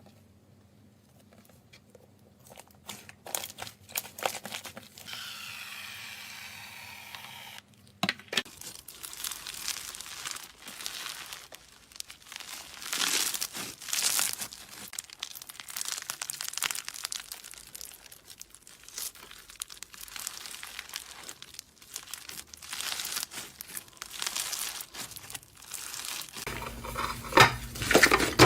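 Slime being squeezed and stretched by hand, making a crinkly crackling of many small pops. It gets louder near the end.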